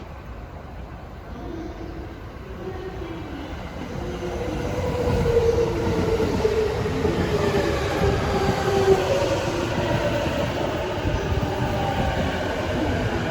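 Electric commuter train pulling into the platform, getting louder from about four seconds in, its traction motors whining in several tones that slowly fall in pitch as it brakes, over rumbling wheels on the rails.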